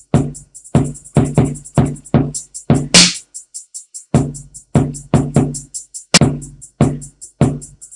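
An 808-style hip-hop/trap drum pattern played from a Native Instruments Maschine 808 kit: rapid closed hi-hats, 808 kicks with a low tone, and sharp snare hits. Everything drops out for about a second just after three seconds in, then the beat comes back in.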